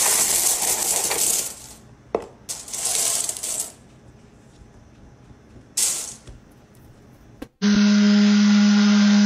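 Coins sliding and rattling inside a small cardboard box as it is tipped, in three bursts, the last one short. About three-quarters of the way through, a loud, steady low hum starts abruptly.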